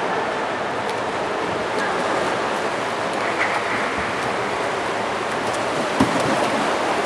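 Water splashing and lapping in an indoor swimming pool, a steady noisy wash, with one brief knock about six seconds in.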